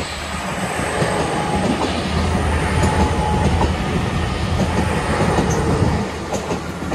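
Great Western Railway Hitachi Intercity Express Train passing close by: a steady rumble of its coaches' wheels on the rails. It builds over the first second and eases slightly near the end.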